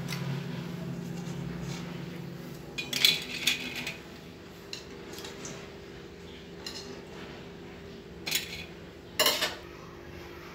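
Steel utensils clinking and scraping against a steel plate as freshly fried murukku are handled, in short clusters about three seconds in and again near the end, over a steady low hum.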